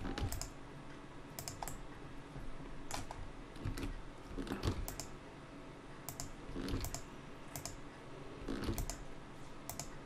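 Computer keyboard keystrokes and mouse clicks while entering Blender shortcuts: irregular sharp clicks, often in pairs, with a few duller thumps.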